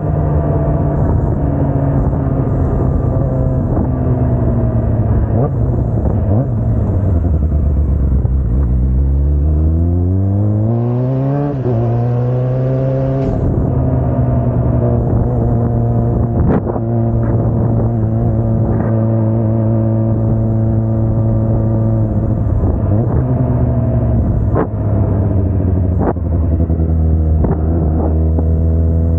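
Kawasaki Ninja 400 motorcycle engine under way on the road: steady cruising, easing off about six seconds in, then revving up hard for a few seconds and dropping in pitch at an upshift, before cruising steadily again. A few short clicks sound over it.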